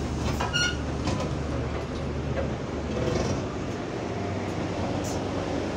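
A bus's engine idling with its electric cooling fan running at one steady pitch, heard from inside the passenger saloon. A short electronic beep sounds about half a second in.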